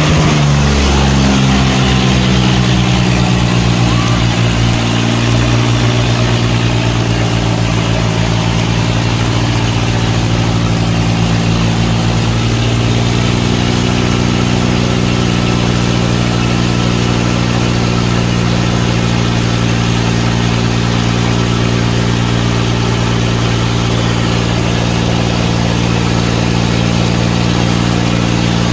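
Tractor diesel engines in a tug-of-war pull, revving up over the first couple of seconds and then held at steady high revs under load.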